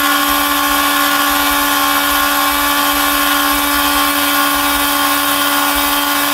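High-speed spindle of a small CNC mill running steadily while a conical engraving bit cuts a double-sided PCB. It gives a constant high whine at one unchanging pitch, over a hiss of cutting.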